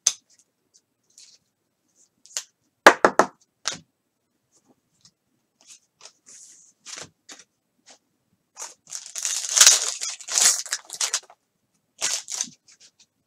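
Trading cards being handled and a foil card-pack wrapper torn open and crinkled: scattered light card flicks and clicks, a sharp snap about three seconds in, and a longer run of wrapper tearing and crinkling about two-thirds of the way through.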